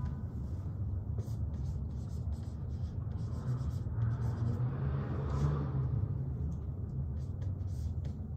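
Dry-erase marker writing on a whiteboard: a series of short, quick strokes over a steady low hum.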